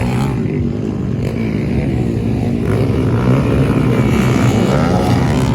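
Off-road vehicle engine running steadily, getting somewhat louder about halfway through.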